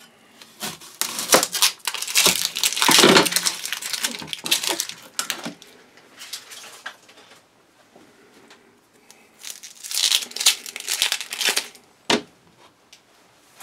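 Dry, papery onion skin crackling and tearing as it is peeled off an onion by hand, in two spells with a quieter pause between them, then a single sharp knock near the end.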